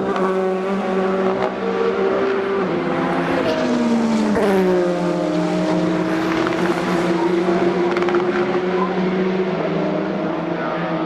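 Le Mans endurance race cars passing one after another at speed, each engine note dropping in pitch as a car goes by, with a steady engine drone between the passes.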